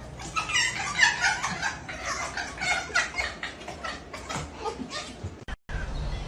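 A pet animal vocalizing in a quick run of short, high-pitched calls that slide up and down in pitch, cut off abruptly near the end.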